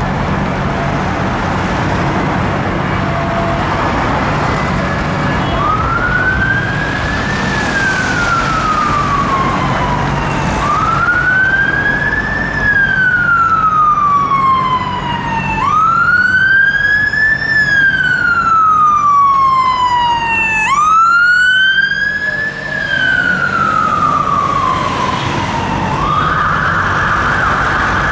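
Mercedes-Benz Atego fire engine's siren on wail: four slow sweeps, each rising then falling over about five seconds, growing louder as it approaches through traffic. Near the end it switches to a rapid yelp. Traffic noise with engine hum lies underneath, alone for the first few seconds.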